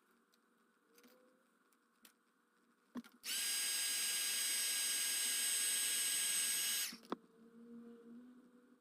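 A small electric tool motor in phone-repair work switches on with a click, runs at a steady high-pitched whine for about three and a half seconds, then stops with another click.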